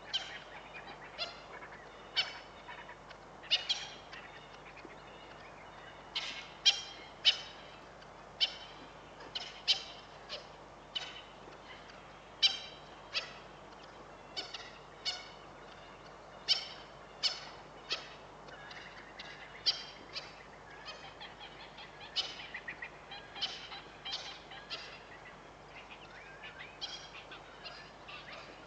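Short, high-pitched animal calls, coming in irregular runs of one or two a second, over a faint steady low hum.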